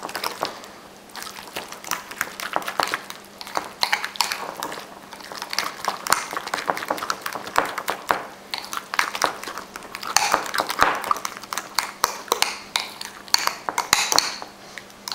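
Metal spoon stirring thick mashed avocado in a ceramic bowl, scraping and clinking against the bowl's sides in quick, irregular strokes, several a second.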